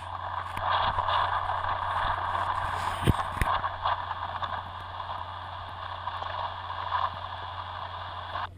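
Small electric motor and propeller of an FPV plane running under power, heard as a steady rushing hiss with a constant low hum, with a sharp click about three seconds in.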